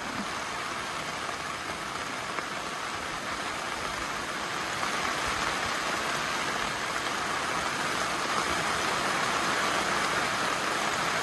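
Steady rain falling, an even hiss that slowly grows louder.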